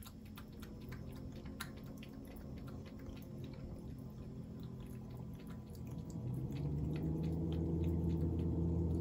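Ragdoll cat lapping water from a ceramic bowl: quick, wet tongue-clicks a few times a second. A low steady hum runs underneath and grows louder over the last few seconds.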